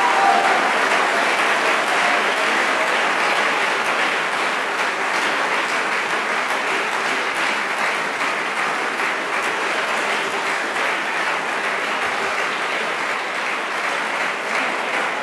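An audience applauding steadily, easing off slightly toward the end.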